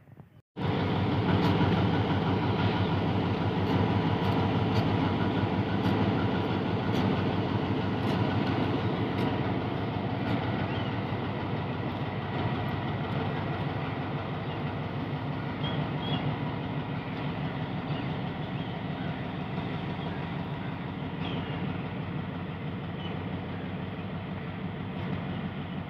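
Diesel-electric locomotive's engine running with a steady throb as the locomotive moves slowly away, the sound gradually fading.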